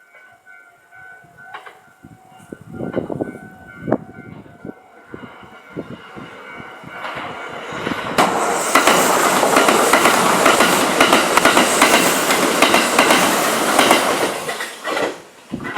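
A Kintetsu limited express electric train passes at speed: a loud rushing rumble of wheels on rail that swells in about eight seconds in and drops away sharply about fifteen seconds in. Gusts of strong wind rumble on the microphone before it.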